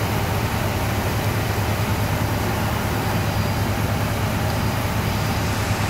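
A machine running steadily: a continuous drone with a strong low hum that does not change.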